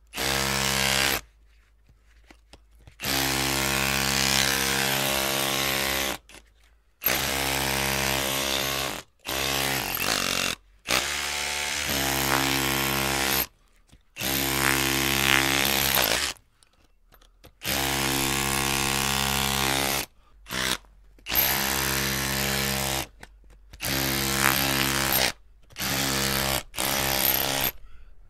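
Electric drill run in repeated bursts, the trigger squeezed and released about a dozen times. Each run holds a steady motor whine for up to about three seconds and stops abruptly, with short gaps between.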